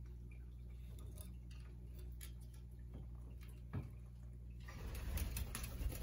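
Quiet, scattered clicks and ticks of an Amazon parrot's claws and beak on a wooden ledge, with one knock a little before the middle and a second or so of rustling and knocking near the end as the bird moves. A low steady hum runs underneath.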